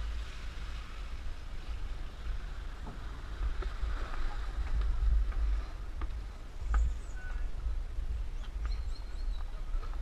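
Gusty wind buffeting the microphone of a body-worn camera while its wearer walks, with a few light knocks of footsteps.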